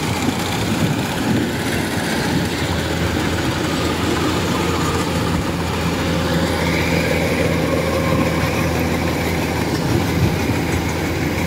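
Kubota DC-105X crawler combine harvester running steadily as it cuts and threshes rice: a constant engine drone mixed with the rattle of the header and threshing machinery. A faint higher whine comes in for a few seconds midway.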